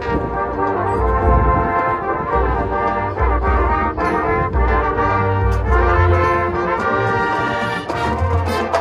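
Marching band playing: the brass section holds full, sustained chords that change every second or so, over a low bass underneath.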